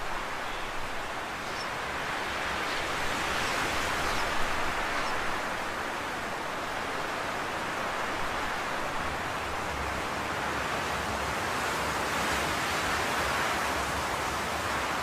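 A steady rushing noise that slowly swells and eases, with no distinct strokes or events in it.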